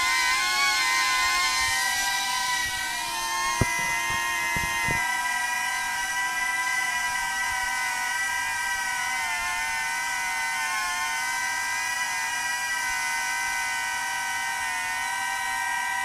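DJI Avata drone hovering, its ducted propellers giving a steady multi-pitched whine that wavers slightly as it holds position. A few sharp clicks sound a few seconds in.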